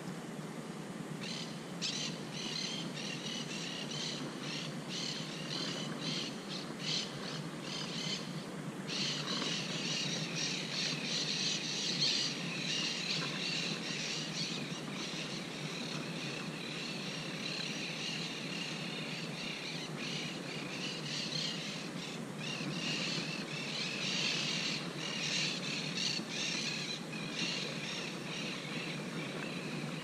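Monk parakeets calling at the nest: a run of short, separate calls, then from about nine seconds in a dense, almost continuous chatter of many calls, over a steady low background noise.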